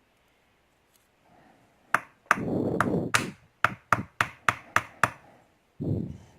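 Small metal lock parts and tools clicking and tapping while a lock's pin chambers are emptied: a couple of sharp clicks, a short rattling scrape, then a quick run of about seven light metallic taps.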